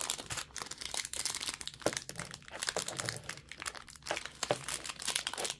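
Foil wrapper of a Rookies and Stars football card pack crinkling as it is worked open by hand, a run of irregular crackles.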